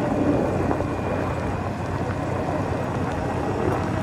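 Motorcycle running steadily as it rides down a wet paved road, heard from the rider's seat, with wind noise on the microphone.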